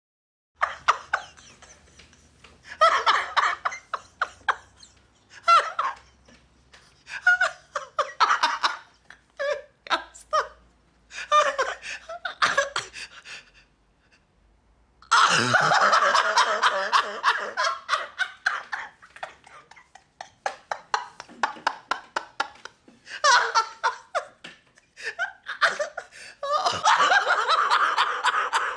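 Human laughter in repeated bouts. It breaks off briefly about halfway through, then comes back as a long, loud stretch of laughing, and swells again near the end.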